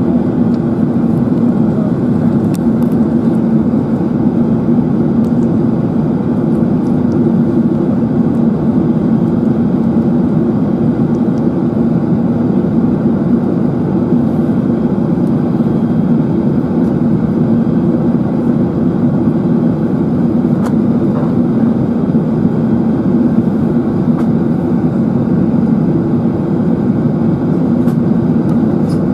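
Steady low roar inside the cabin of a British Airways Airbus A380-841 in flight: airflow over the fuselage mixed with the hum of its Rolls-Royce Trent 970 engines, heard at a window seat over the wing.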